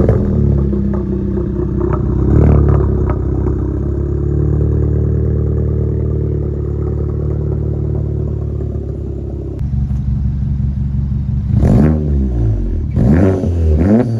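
Mk7 Volkswagen Golf's turbocharged four-cylinder, breathing through a full custom straight-pipe exhaust with no catalytic converters, idling loud just after being started, with a short rev about two seconds in. The idle settles about ten seconds in, then the throttle is blipped several times near the end, the pitch rising and falling with each blip.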